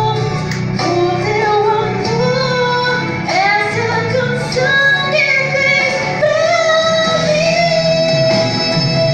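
A female student singing a song in Portuguese over an instrumental accompaniment, the melody sliding between notes, with one long held note about six seconds in.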